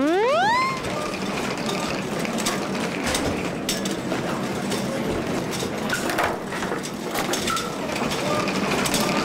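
A rising, siren-like tone winds up and stops about a second in. A dense, steady clatter of rattling and clicking follows, like carts and a crowd bustling through a hallway.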